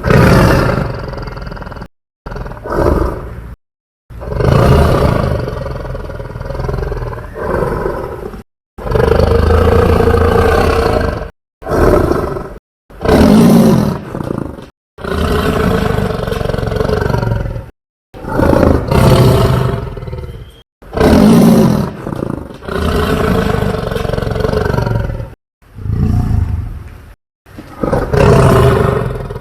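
A run of homemade dinosaur roar sound effects: about a dozen separate roars of one to four seconds each, each cut off into a short gap of dead silence before the next.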